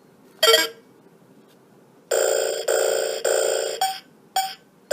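A single sharp plastic click, then a loud electronic ringtone-like melody that begins about two seconds in: three long notes followed by shorter ones, repeating.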